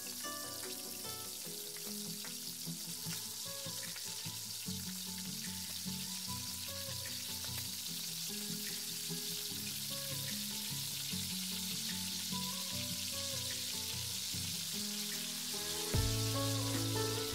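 Flour-coated potato fries deep-frying in hot oil, a steady bubbling sizzle. Background music plays under it and turns louder and deeper near the end.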